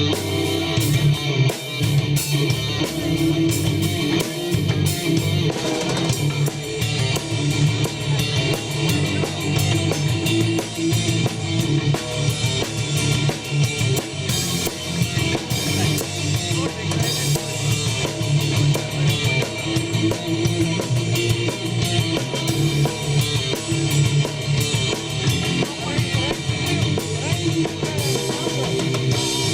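Live rock band playing a song: electric guitars over a drum kit with a steady beat.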